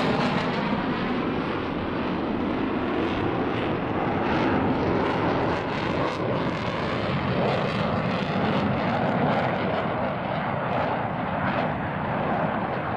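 Jet noise from a US Navy Blue Angels F/A-18 Hornet's two turbofan engines as it flies a display pass, a steady rushing sound.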